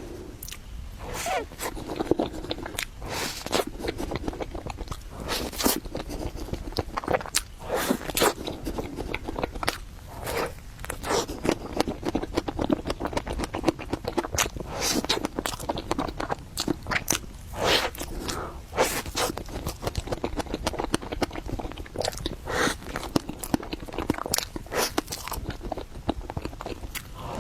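Close-miked eating of matcha mille crepe cake: chewing and mouth sounds made up of many sharp, irregular clicks and smacks.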